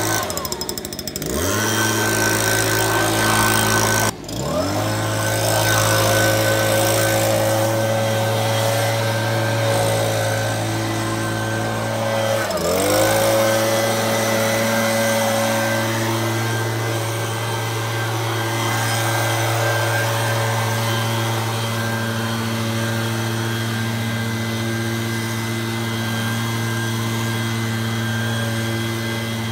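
STIHL BG56 C-E handheld leaf blower's small two-stroke engine running with the fan blowing. Its pitch dips and climbs back three times, near the start, about four seconds in and about twelve seconds in, then holds steady.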